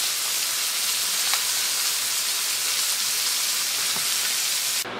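Skin-on chicken breast sizzling steadily in hot fat in a frying pan, a continuous crackling hiss that cuts off abruptly near the end.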